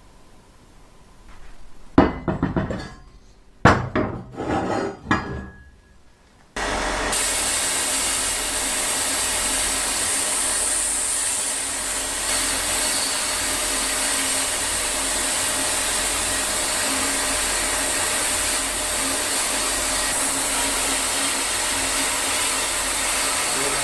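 A few sharp wooden knocks and clatters, then about six seconds in an old appliance's electric motor switches on and runs steadily with a hissing whir.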